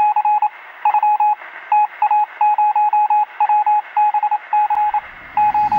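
Intro sound effect of electronic beeps at one steady pitch, sent in irregular groups of short and longer tones like Morse code, over a steady hiss of radio static. A low rumble comes in near the end.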